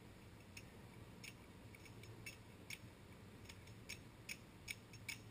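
Near silence: quiet outdoor background hum with a scattering of faint, short, irregular ticks, coming more often in the second half.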